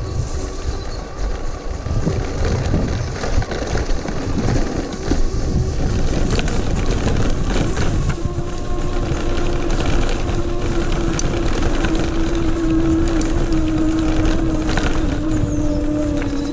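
20-inch 250 W rear hub motor of an e-bike, run from a 48 V 1000 W controller, whining under hard load on a dirt-trail climb over a steady rumble of tyres and handlebar-camera vibration. The whine becomes a clear steady tone about eight seconds in and sinks slightly in pitch near the end as the motor slows on the climb.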